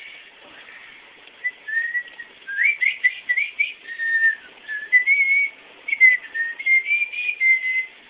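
A person whistling a tune: a string of short notes that slide up and down in pitch, starting about one and a half seconds in.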